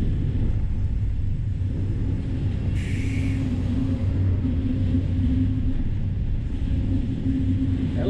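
Band sawmill machinery running, a steady low rumble and hum, with a short hiss about three seconds in.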